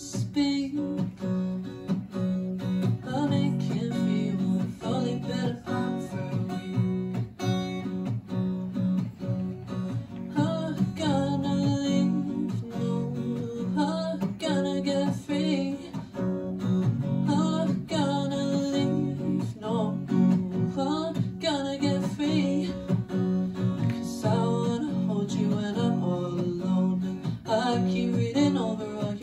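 Acoustic guitar strummed steadily through a song, with a woman singing over it for much of the stretch.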